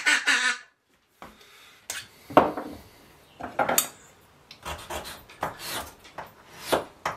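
A handmade ebony duck call blown in a quick run of quacks, which stops under a second in. After a short gap come irregular short scraping strokes on wood: a file taking material off the call's soundboard to tune it.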